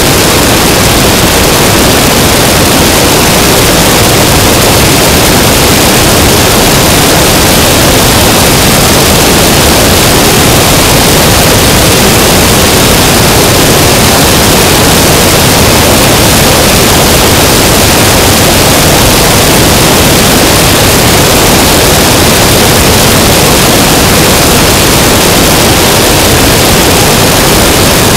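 Steady, loud rush of wind and engine noise from an Aeronca Chief light aircraft in cruise flight, picked up by an action camera mounted on the outside of the fuselage, so airflow over the microphone swamps any clear engine note.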